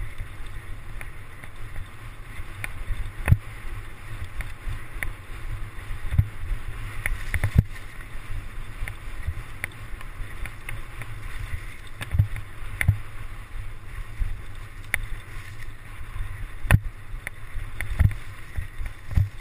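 Mountain bike rolling fast over a bumpy grass track, with wind rumbling on the on-board camera microphone. Scattered knocks and rattles come from the bike jolting over bumps.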